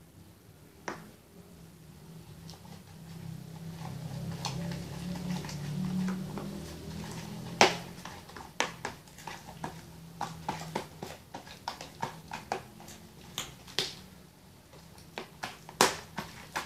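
Green jelly slime being squeezed, stretched and kneaded by hand in a plastic tub, giving irregular wet clicks and pops that come thick and fast in the second half. A low hum swells and fades underneath in the first half.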